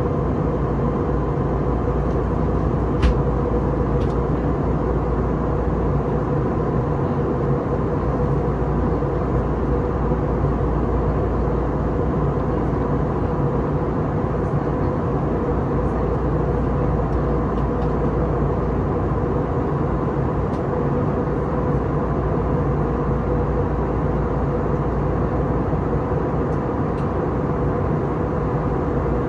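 Airbus A321neo cabin during the climb: a steady drone of its CFM LEAP-1A turbofans and airflow past the fuselage, with a low rumble and a steady whine from the engines. A single light click about three seconds in.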